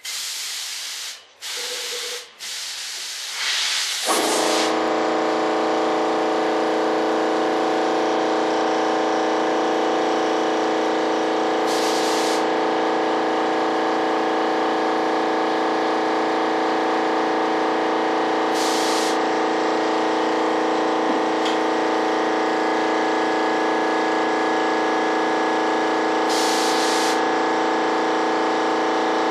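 Spray gun hissing in short bursts. About four seconds in, an air compressor starts and runs steadily with a humming drone. Brief spurts of spray hiss come over it roughly every seven seconds.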